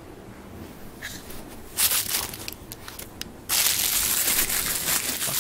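Plastic cereal bag crinkling: a few short crackles about two seconds in, then continuous loud crinkling from about halfway through.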